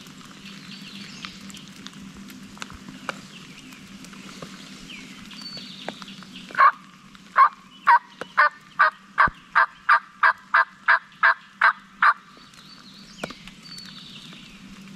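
A turkey call giving a run of about fourteen hen yelps, evenly paced at roughly two and a half a second, starting about six and a half seconds in and stopping at about twelve seconds. It is a calling sequence cast toward a gobbler to draw him in.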